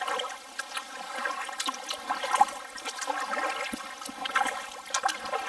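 Kayak paddle strokes: water splashing and trickling off the paddle blades in an irregular run of small splashes.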